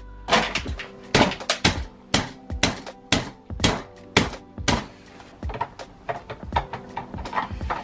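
Metal clicks and knocks from a car seat's steel rails and adjuster mechanism being handled and worked loose, a quick irregular run that thins out after about five seconds.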